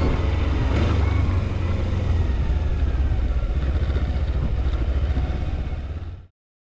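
A motor vehicle engine running steadily with a strong low rumble, cutting off abruptly about six seconds in.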